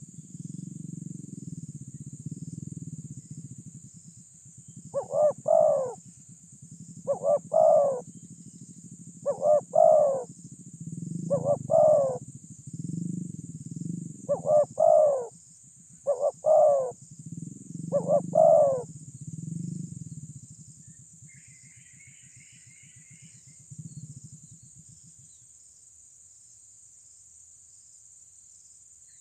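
Spotted dove cooing: seven loud coos, each a quick double or triple phrase, about two seconds apart, stopping about two-thirds of the way through. A steady high insect buzz runs underneath.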